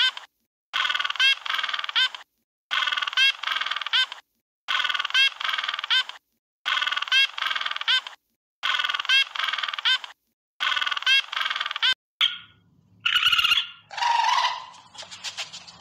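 A short recorded animal call, looped: the same clip plays six times, about once every two seconds, with brief silences between. Near the end it switches to a different animal sound.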